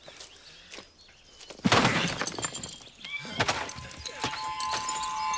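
A large old stone urn being smashed: a loud crash about a second and a half in, breaking debris after it, then a second blow about two seconds later. Near the end a steady ringing tone comes in.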